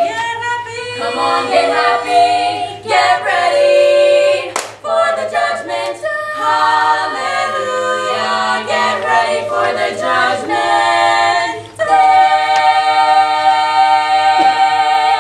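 Female barbershop quartet singing a cappella in four-part close harmony: the final bars of the song, ending on a long held chord near the end.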